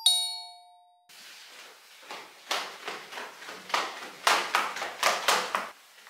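A two-note door chime, a higher note then a lower one, rings and fades over the first second. Then hurried footsteps, about two a second, for a few seconds.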